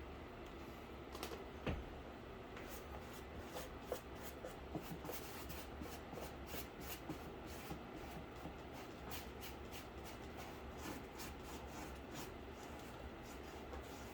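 Paintbrush working over a cardboard case: a fast, irregular run of dry scratchy brush strokes and dabs, rough enough to tear at the cardboard's top surface.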